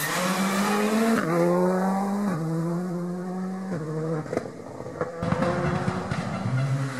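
Rally car accelerating away through the gears, its engine climbing in pitch and dropping back at each of three upshifts, then fading as it goes. Two sharp cracks follow, and near the end another rally car's engine can be heard rising as it approaches.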